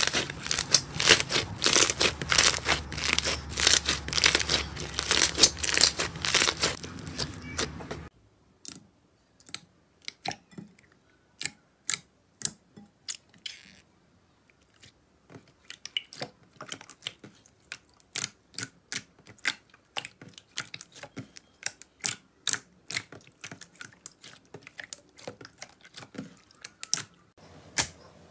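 Chunky 'popcorn' crunchy slime squeezed and kneaded by hand: a dense run of crackling and crunching. It stops abruptly about eight seconds in. Sparse sharp clicks and pops follow as a spoon works through glossy, runny slime.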